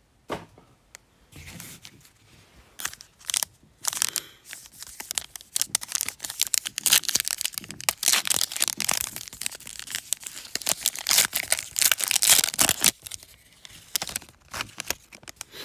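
A foil NBA Hoops Premium Stock trading-card pack being torn open and crinkled by hand. The crackling tear and rustle comes in short bursts at first, grows dense and loud through the middle, and eases off near the end.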